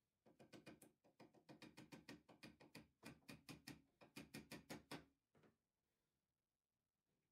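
Small hammer tapping a nail, held in needle-nose pliers, into a plywood disc: quick taps, several a second, in three runs with short breaks, stopping about five seconds in after one last tap.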